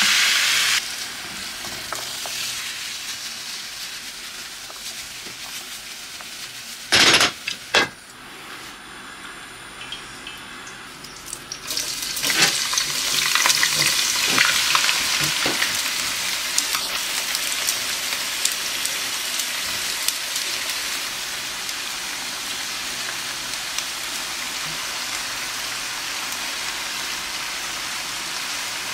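Food frying in a pan: a steady hissing sizzle that gets louder about twelve seconds in and stays up. A brief loud hiss at the start and two loud sharp sounds around seven seconds in stand out from it.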